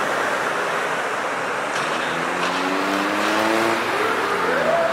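Street traffic noise with an articulated city bus pulling away. From about two seconds in, its engine pitch rises steadily as it accelerates, then jumps up and starts to fall near the end.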